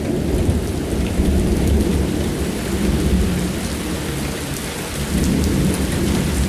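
Thunder from a nearby lightning strike rumbling on and on, swelling and easing, over steady heavy rain.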